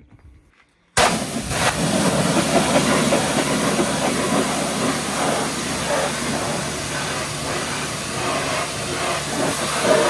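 Pressure washer jet spraying water onto the metal side panels and pulleys of a combine harvester: a steady, loud hiss that starts suddenly about a second in.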